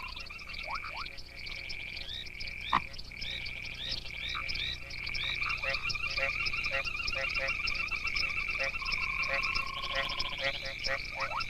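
A chorus of many frogs calling together, with a steady high trill, rapid pulsed calls and short rising chirps overlapping, and one sharp click about three seconds in.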